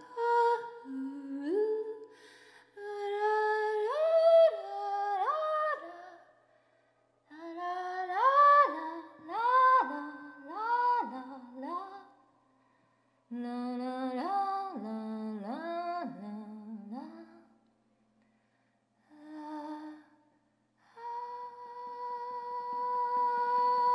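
A woman's voice humming phrases of short notes that each slide upward into pitch, with pauses between the phrases. Near the end a steady held tone comes in.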